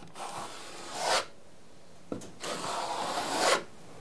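Notched trowel scraping across tile mastic on a wall in two long strokes, each growing louder toward its end, combing ridges into the adhesive. A short click marks the start of the second stroke.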